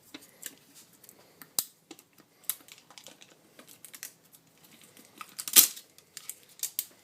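Hands handling a new oil filter and its packaging: scattered small clicks and crinkles, with one louder rustling click about five and a half seconds in.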